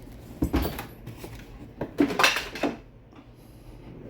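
Hard metal and plastic items clattering as they are handled in a toolbox, in two bursts: a short one about half a second in and a longer one around two seconds in.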